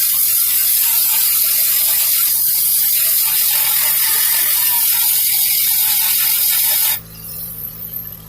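Electric welding arc crackling and hissing steadily, then cutting off abruptly about seven seconds in.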